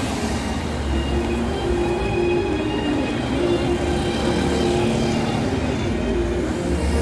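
Busy city street traffic: cars and buses passing on the road, a continuous rumble with some steady engine hum.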